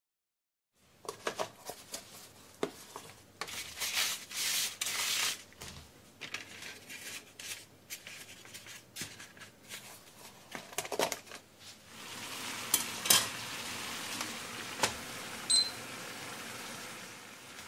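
Light knocks and rustles of thick noodles being handled in a bamboo steamer basket. About twelve seconds in, a steady hiss of the steamer over a gas burner at high heat sets in, with a few sharp clicks and a short electronic beep from a digital kitchen timer being set.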